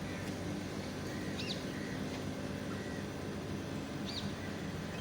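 Two or three brief, high bird chirps, one about a second and a half in and another near four seconds, over a steady background hiss with a low hum.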